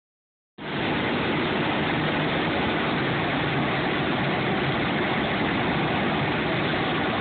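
A car's engine idling as the car creeps along at walking pace, heard from inside the cabin. It is a steady hum that starts about half a second in.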